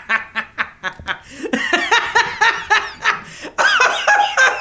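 A man laughing heartily: a quick run of short, evenly spaced laughs, then higher-pitched, drawn-out laughter.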